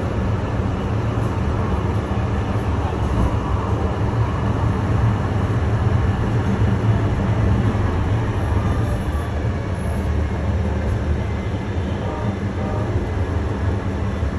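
Light rail car heard from inside the cabin while running: a steady low rumble with a constant low hum underneath, unchanging throughout.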